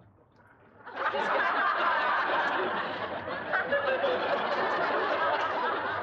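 Studio audience laughing, breaking out suddenly about a second in and carrying on loudly.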